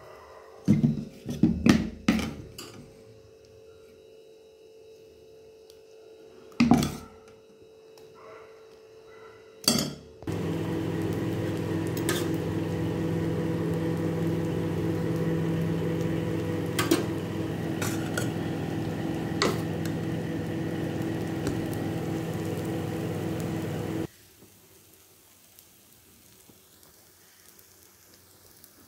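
A steel spoon clinks against a steel bowl while paddu batter is mixed, with a few separate knocks. About ten seconds in a loud steady hum with hiss starts abruptly, with a few clicks of the spoon on the cast-iron paniyaram pan, and cuts off suddenly about fourteen seconds later.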